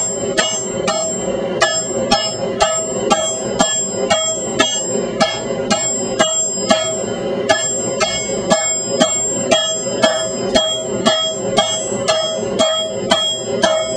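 Hammer blows ringing on an anvil, about two a second, each strike leaving a bright, bell-like ring, with a short break about seven seconds in.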